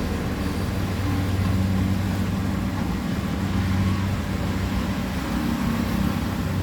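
Rice harvester engine running steadily with a low hum and machinery noise.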